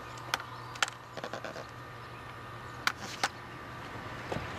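Faint steady outdoor background with a few short, sharp clicks and taps: two in the first second and two louder ones about three seconds in.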